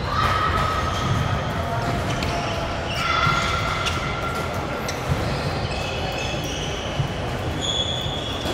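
Court shoes squeaking on a sports-hall floor during a badminton rally, short high squeaks at changing pitches, with sharp racket hits on a shuttlecock about five and seven seconds in. Voices murmur in the hall behind.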